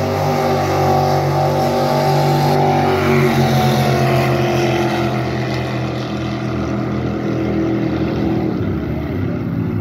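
Race jet boat's engine running hard at high revs, its pitch holding steady and then slowly dropping over the second half.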